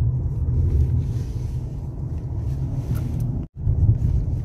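Ford Taurus heard from inside the cabin while driving: a steady low road and engine rumble. The sound cuts out for an instant about three and a half seconds in.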